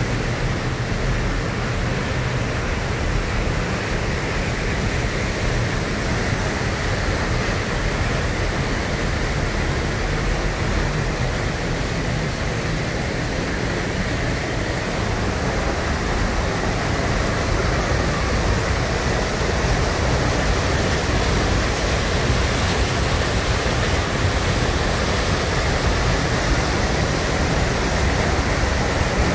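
Rifle Falls waterfall heard close up from behind the falling curtain of water: a steady, loud rush of falling water, a little louder in the second half.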